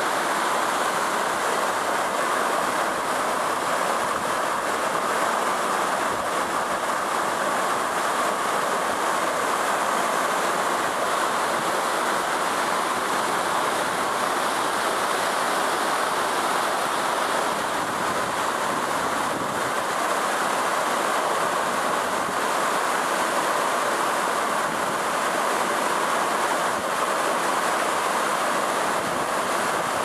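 Tall waterfall falling down a rock gorge, heard close to its base: a loud, unbroken rush of water.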